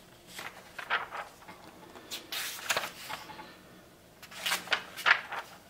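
Glossy magazine pages being turned and handled: a few papery rustles and flaps, the loudest group about two and a half seconds in and another near the end.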